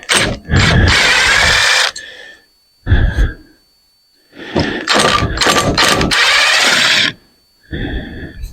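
A handheld power tool running in four bursts of about one to three seconds each, with short pauses between them.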